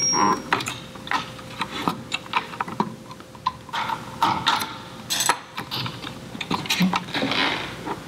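Irregular clicks and short scrapes of a screwdriver and fingers working small plastic tubes off the fittings of a diaphragm pump housing.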